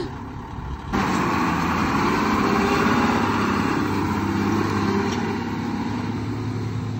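A 1987 Mitsubishi Fuso truck's diesel engine running as the truck moves off and drives away. It gets suddenly louder about a second in, then holds steady and eases off slightly near the end.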